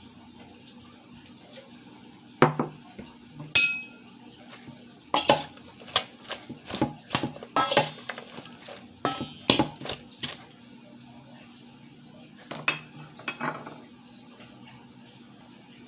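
A metal utensil clanking and scraping against a stainless steel mixing bowl as a salad is tossed, in irregular knocks. One strike near the start rings out like a struck bowl, then there is a dense run of clanks, and a last pair comes near the end.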